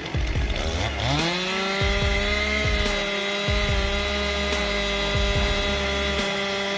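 Chainsaw engine revving up about a second in, then held steady at full throttle.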